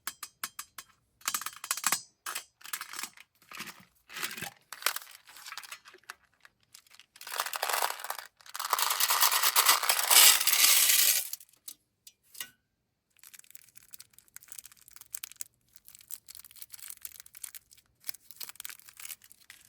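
M&M's candies pouring out of their container and clattering across a hard surface. Scattered clicks and rattles lead up to one dense continuous pour, the loudest part, from about seven to eleven seconds in, and lighter scattered clicking and rustling follows.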